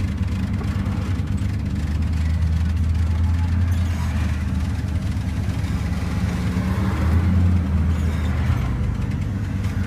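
A car running with a steady low rumble, heard from inside the cabin.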